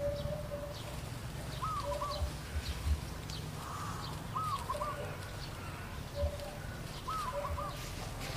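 Birds calling: a short looping call repeated three times, about every three seconds, with shorter, lower steady notes in between. A few low thumps stand out among them.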